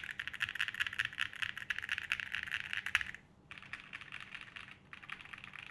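Fast typing on a custom 75% mechanical keyboard, a quick run of key clacks. About three seconds in it breaks off briefly, then resumes more softly.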